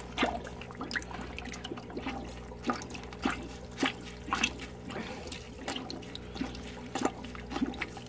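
Aquarium sponge filter being squeezed and rinsed by hand in a bucket of aquarium water: irregular sloshing and splashing. A steady low hum runs underneath.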